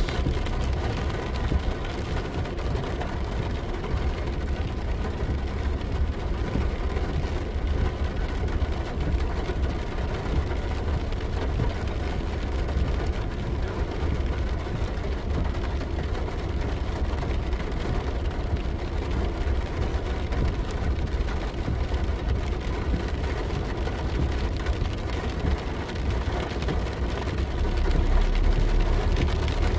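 A car running steadily on the road, with a continuous low engine and road rumble that grows a little louder near the end.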